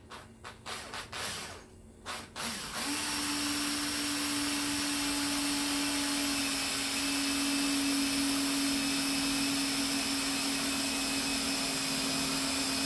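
Cordless drill running steadily under load, drilling into the blind's rail on a carpeted plywood frame; the motor starts about three seconds in, after a few light knocks and handling sounds.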